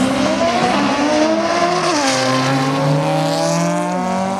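Twin-turbo Audi R8 accelerating hard from a launch, its engine note climbing and dropping sharply at upshifts about two seconds in and again near the end.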